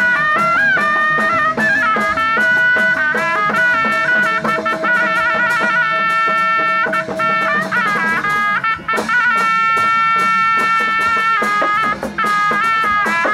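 Thai shadow-puppet ensemble music: a reedy wind instrument plays a melody of held and sliding notes over steady quick percussion strokes. A lower sustained tone drops out about eight seconds in.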